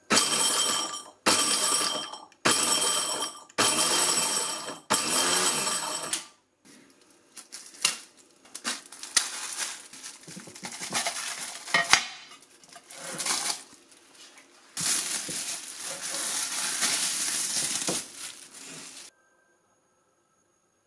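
Silvercrest electric mini chopper run in five short pulses of about a second each, its motor whining up and down as the blade chops pistachios. Then scattered metallic clinks, knocks and scraping as a metal log mould is worked off a frozen dessert, ending in a few seconds of steady scraping.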